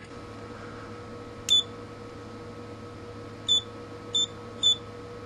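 Klein Tools MM500 multimeter beeping as its buttons are pressed: four short high beeps, one about a second and a half in and three close together near the end. A steady low electrical hum runs underneath.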